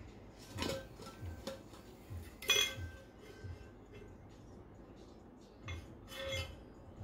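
A stainless-steel insulated tumbler and the straw inside it clinking as the tumbler is handled: a few separate metallic clinks that ring briefly, the loudest about two and a half seconds in.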